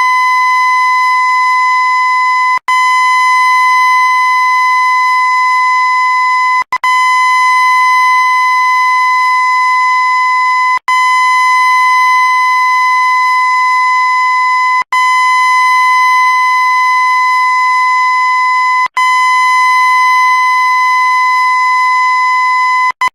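A loud, steady, high-pitched tone played on a loop, dropping out for an instant about every four seconds where the loop restarts; it stops just at the end.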